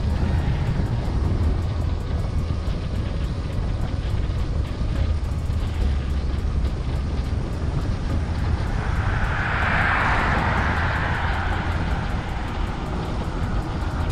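Wind buffeting the microphone of a moving bicycle, a steady low rumble, with a hiss that swells and fades away about nine to twelve seconds in as something passes.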